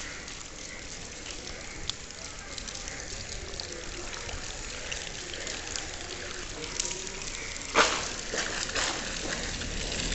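Steady patter of light rain and trickling water over a wet street, with scattered small drips and clicks. A short, sharp knock stands out about eight seconds in.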